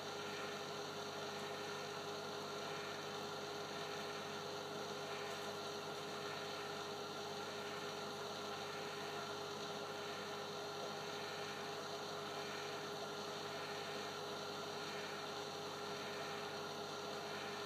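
Steady hum of saltwater-aquarium equipment: one constant mid-pitched tone with fainter steady tones over a low hiss. A soft swell repeats a little more often than once a second.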